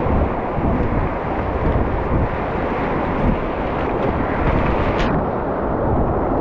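Muddy whitewater rapids rushing and churning close around a kayak, a steady loud noise, with wind buffeting the microphone.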